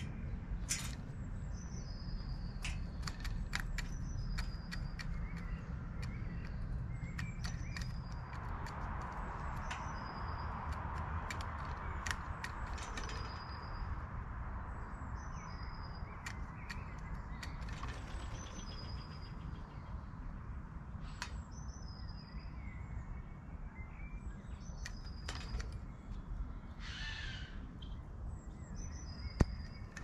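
Birds at a feeder: harsh caw-like calls from a magpie, and a small bird repeating a short, high, falling chirp about every second and a half. Scattered clicks and taps, with one sharp click near the end, over a steady low rumble.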